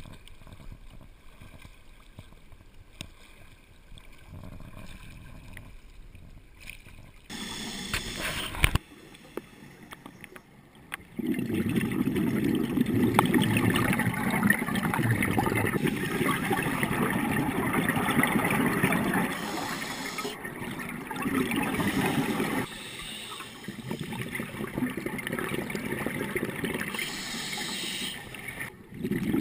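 Quiet water sounds at the surface, then, once the camera is under water, muffled bubbling and gurgling of scuba divers' exhaled air heard through the camera housing. The bubbling comes in several long stretches with short breaks.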